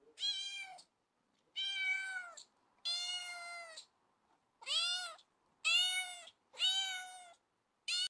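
Kitten meowing six times, short high-pitched calls about a second apart, each rising and then falling in pitch.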